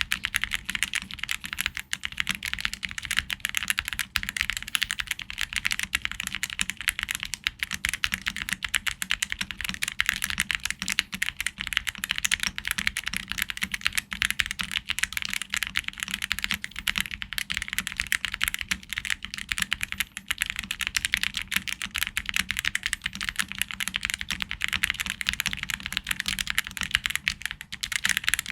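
Fast continuous typing on a Yunzii YZ87 prebuilt tenkeyless mechanical keyboard: a dense, unbroken patter of key clicks.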